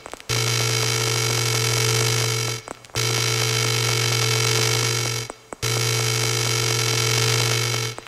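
Looped noise drone from a drone-box synthesizer run through Kaoss Pad effects: a dense, steady buzzing wall of tones over a strong low hum. It cuts out briefly at even intervals, about every two and a half seconds.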